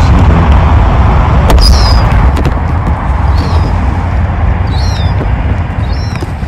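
Steady loud low rumble, with short high falling gull calls every second or two.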